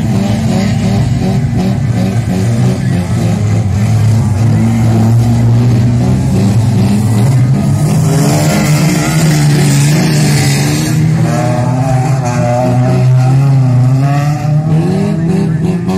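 Engines of banger racing cars revving hard on a dirt track, several at once, their pitch rising and falling as they accelerate and back off for the corners. About eight seconds in, a louder rush as a car slides sideways past close by, tyres spraying dirt.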